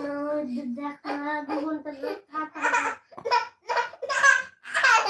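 Toddler's voice: a long drawn-out vocal sound for about the first two seconds, then short bursts of giggling laughter.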